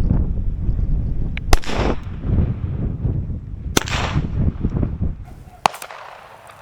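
Three shots from a Ruger Mark IV .22 LR pistol, heard from about 155 yards downrange, each a sharp crack with a short fading tail, roughly two seconds apart. Heavy wind rumbles on the microphone underneath.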